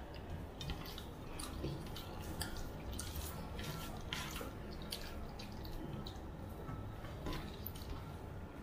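Eating by hand from steel plates: fingers squishing and mixing rice with fish curry, and the small wet clicks and smacks of chewing, scattered irregularly.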